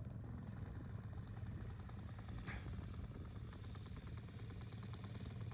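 Engine of a giant-scale radio-controlled Fly Baby model airplane running steadily at low throttle as the plane taxis, a low, even drone.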